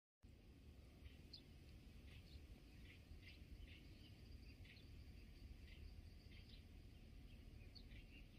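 After a brief moment of dead silence, faint, irregular short high chirps from small creatures sound over a low steady rumble.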